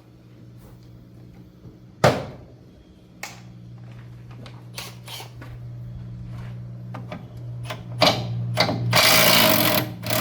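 Impact wrench loosening bolts on an air compressor's oil reservoir: a sharp metal clank about two seconds in, scattered clicks and knocks, then a loud burst of the wrench running for about a second near the end, over a steady low hum.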